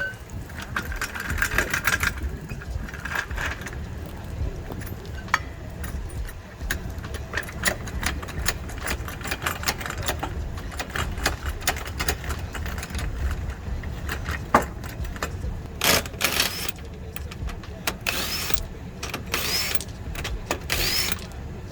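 A car engine running steadily, with clinks and clatter of tools and metal parts over it and several short hissing bursts near the end.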